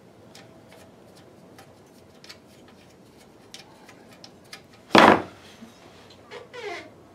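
Light clicks and taps of hands working on a kerosene heater's metal cabinet and its wing nuts, with one loud clunk about five seconds in and a short sound falling in pitch near the end.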